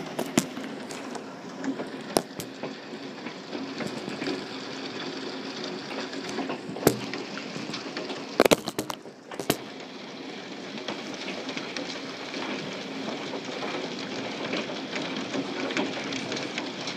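Hail falling steadily: a dense, even patter of hailstones striking the ground and surfaces, with sharper individual clicks and knocks scattered through it and a short cluster of loud knocks about eight and a half seconds in.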